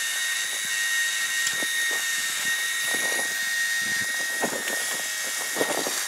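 Milling machine spindle running with a drill bit cutting down into a steel vise shaft, drilling the hole for a taper pin. A steady high whine runs throughout, with irregular crackles from the cutting and chips that come more often in the second half.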